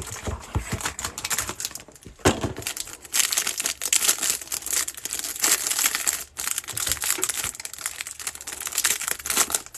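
Clear plastic wrapper on a pack of trading cards crinkling as it is torn open and peeled off the card stack, after some quieter handling of the cardboard box.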